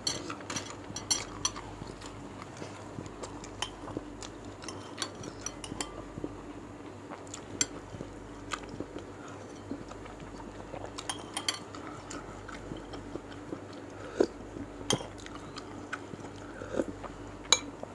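Close-miked chewing and biting of beef meatballs, with a metal fork and spoon clinking and scraping now and then against the bowl. A faint steady hum runs underneath.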